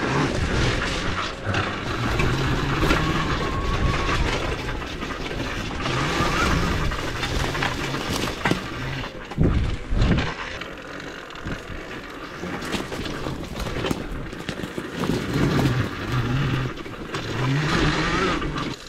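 Homemade electric dirt bike with a Zero SR motor descending a rough dirt trail under regenerative braking. Tyres and chassis rattle over the ground, with wind noise and a faint motor whine that rises and falls. Two hard knocks come about nine and a half and ten seconds in.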